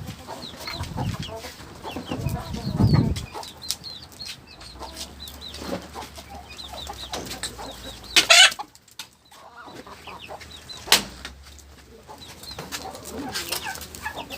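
A flock of chickens clucking, with many short high peeps. A brief loud noise comes about eight seconds in.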